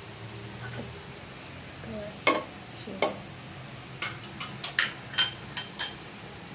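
A metal spoon clinking against metal cookware, a pressure cooker and its bowls: two sharp clinks, then a quick run of about eight ringing clinks between about four and six seconds in, as ingredients are spooned in and stirred.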